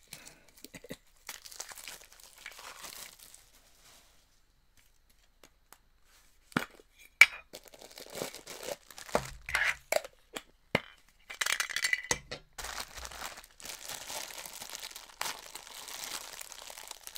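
Plastic wrapping crinkling and tearing as a figure is unpacked from a Funko Soda can, with several sharp clicks and snaps. The loudest snap comes about seven seconds in, after a brief quiet gap, and the crinkling is busiest in the last third.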